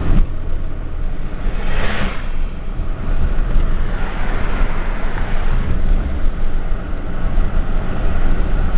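Pickup truck being driven, with steady engine and road rumble heard from inside the cab and a brief rush of hiss about two seconds in.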